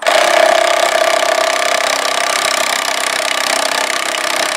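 A power tool running continuously at a steady high pitch, starting abruptly and holding its speed, while working a bolt on a car's front lower suspension arm.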